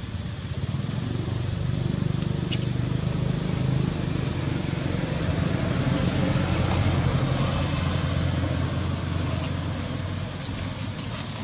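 Low engine rumble of a vehicle, swelling for several seconds and then fading, over a steady high hiss.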